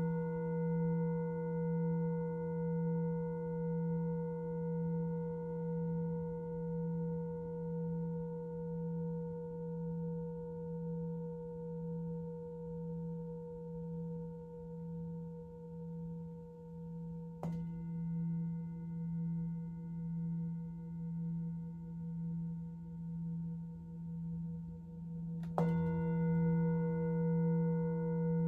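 Singing bowl ringing with a low, slowly wobbling hum and several higher overtones. It is struck again about two-thirds of the way through and once more near the end, each strike renewing the ring.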